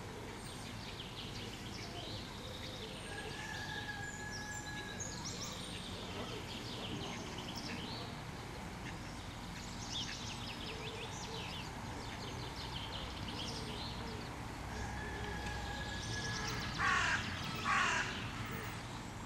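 Outdoor birdsong: many small birds chirping and trilling throughout, with two loud calls about a second apart near the end.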